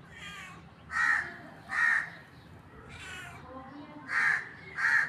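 Tabby cat meowing over and over in short, harsh meows, about six in all, four of them loud, roughly one a second.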